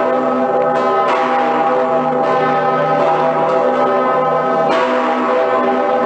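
Cologne Cathedral's two great swinging bells, St. Peter's Bell and Pretiosa, ringing out of step with each other. There are clapper strokes about a second in (two in quick succession), again a second later and near five seconds, and each rings on in a long hum under the next.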